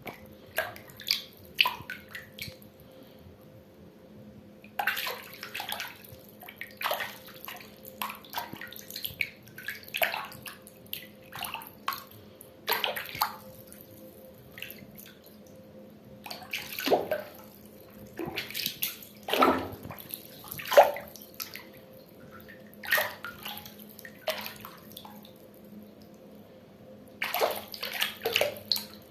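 Water splashing and pouring in irregular bursts, some short and some lasting a second or two, with quieter gaps between, over a faint steady hum.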